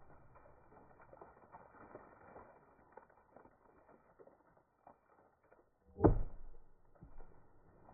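Faint creaking and rustling with small clicks, then one loud sharp knock about six seconds in and a lighter one about a second later.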